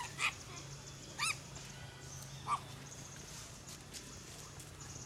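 Juvenile long-tailed macaques giving three short, high squeals about a second apart while play-fighting, over a steady low hum.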